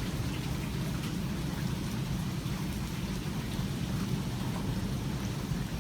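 Steady rain during a thunderstorm, with faint scattered drop ticks and a steady low rumble underneath.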